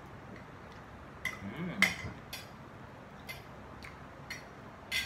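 Metal spoons and forks clinking and scraping on ceramic dinner plates during a meal: several sharp separate clinks, the loudest about two seconds in.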